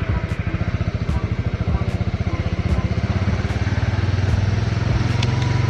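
Honda Winner X's 150 cc single-cylinder engine running at low speed as the motorcycle rolls off, with a fast, even beat. A deeper steady hum grows louder in the second half.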